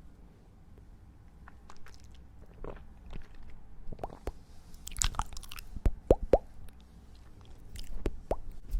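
Close-miked ASMR trigger sounds: irregular soft crackles and clicks, with a busier, louder cluster about halfway through.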